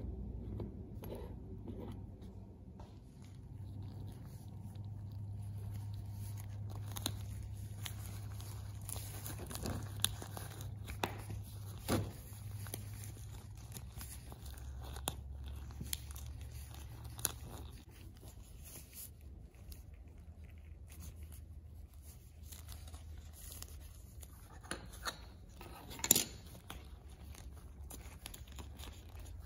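Nitrile gloves rustling and crinkling as small die-cast car parts are handled on a cutting mat, with scattered light clicks and taps, the loudest about 26 seconds in, over a low steady hum.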